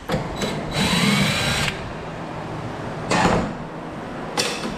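Cordless drill-driver running for about a second with a rising whine, backing out a panel screw; then a short rattle and a sharp click near the end.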